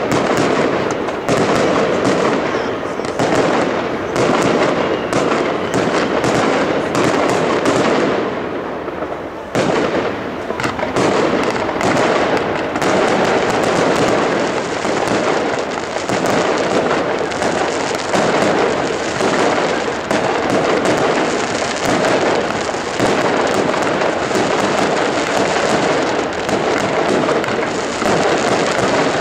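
Professional fireworks display: aerial shells bursting in quick succession, with constant crackling and popping. The barrage eases briefly about eight to ten seconds in, then picks up again.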